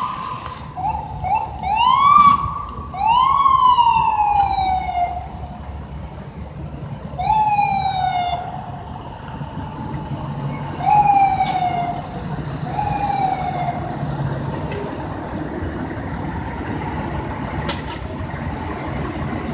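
An emergency vehicle siren sounds in several short whoops over the first fourteen seconds, each a quick rise in pitch and a slower falling glide. Steady city traffic noise runs beneath it and continues on its own after the siren stops.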